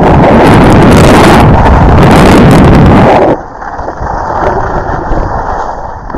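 Wind buffeting the microphone of a camera worn by a downhill skier, loud and rough, dropping about halfway through to a quieter rush.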